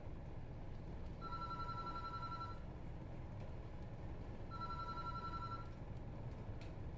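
Telephone on a ship's bridge ringing twice, each ring just over a second long, over a steady low rumble.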